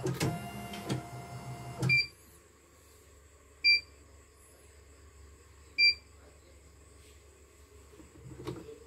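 CNY portable embroidery machine running, which stops about two seconds in. Its control panel then gives two short beeps about two seconds apart.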